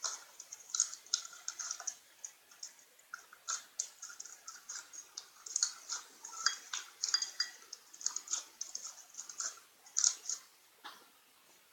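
Slime being squeezed and stretched by hand, giving irregular small sticky clicks and pops with short gaps between bursts.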